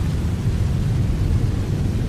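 Rain falling steadily, heard as an even wash of noise with a deep, constant rumble underneath.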